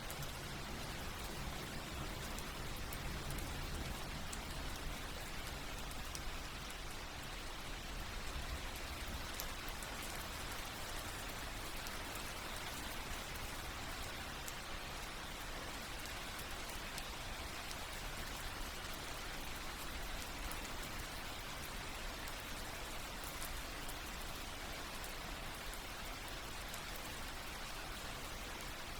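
Steady rain falling, with a continuous hiss and fine scattered drop ticks.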